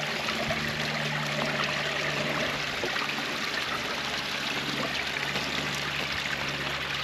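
Water splashing and trickling steadily over a small rock waterfall into a backyard pond, with a steady low hum underneath.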